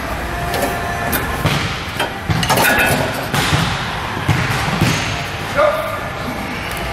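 Thumps and knocks from a seated leg curl machine as it is adjusted and the first reps begin, over steady background noise.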